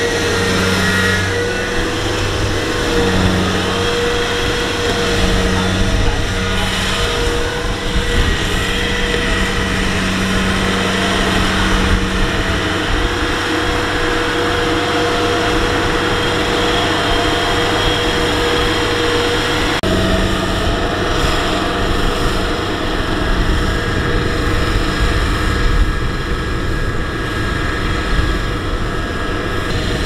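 Tracked rice combine harvester running, its diesel engine steady under load as it drives, with a constant high whine on top and a low hum that pulses on and off during the first half.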